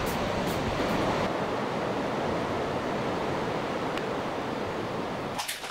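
Sea surf washing steadily on the shore, a continuous even rush, which drops away with a couple of sharp clicks just before the end.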